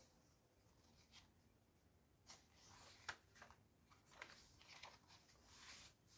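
Faint rustling and soft flaps of paper pages being turned by hand in a handmade junk journal, several short swishes in a row.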